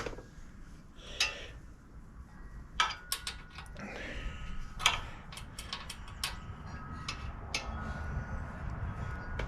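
Irregular metallic clicks and clinks of tools and bicycle parts being handled, with a faint steady whine starting about three seconds in.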